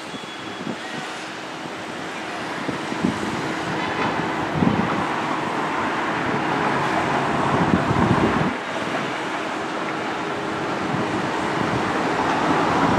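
Steady rumble of passing vehicles that builds over the first several seconds, with its deepest part falling away about eight and a half seconds in.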